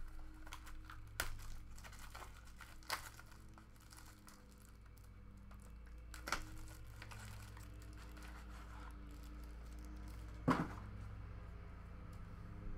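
Plastic wrapping crinkling and tearing as a sealed trading-card box is opened and its stack of cards handled, with a few light clicks and taps from the cardboard box, the sharpest one near the end.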